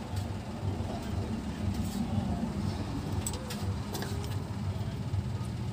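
A steady low rumble, with a few light clicks and taps as a small electronics circuit board with a rotary volume control is handled.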